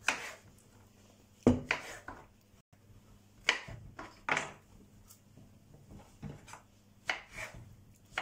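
Kitchen knife cutting button mushrooms into quarters on a wooden cutting board: a series of sharp separate knocks of the blade against the board, a second or two apart, the loudest about one and a half seconds in.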